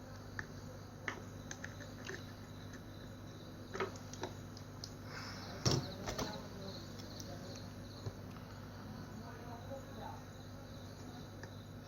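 Small clicks and taps of hand tools working on an electronic circuit board, scattered and irregular, with the loudest click a little before the middle. They sit over a steady low electrical hum from the bench equipment.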